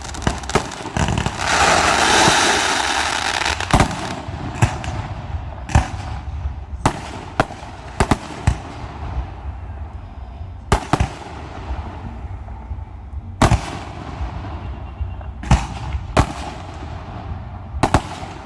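Aerial fireworks shells bursting in a display. A dense crackling hiss swells about a second in, then sharp bangs follow one another every second or so, each trailing off, over a low rumble.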